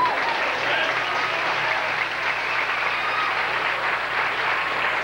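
Large basketball crowd in a packed gymnasium applauding, a steady wash of clapping with scattered shouts.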